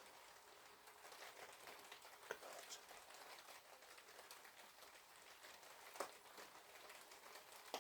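Light rain falling on a patio, a faint steady hiss with a few single drops standing out; the shower is easing off.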